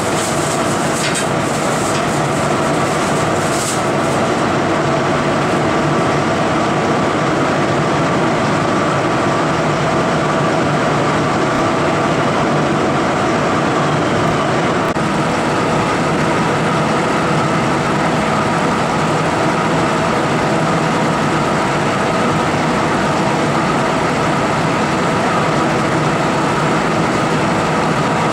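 Met One CNC-1104 condensation nucleus counter running, drawing its sample flow of about 0.1 CFM: a steady mechanical hum with several steady tones from its pump and rear cooling fan. A few light clicks come in the first few seconds.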